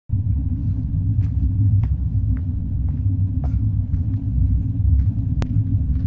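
A deep, steady low rumble, with a few faint scattered ticks above it.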